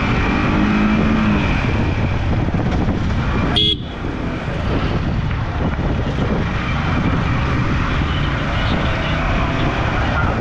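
Motorcycle riding noise in traffic: steady, dense road and engine rumble with car horns sounding, briefly dropping out about four seconds in.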